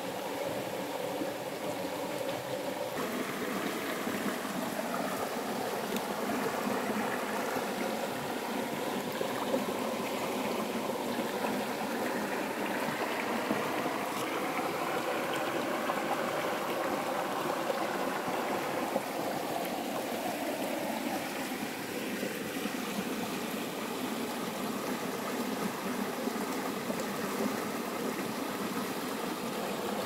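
Shallow river water flowing and rippling over stones, a steady rushing burble. Through the middle there is also a faint hum that slowly rises and falls in pitch.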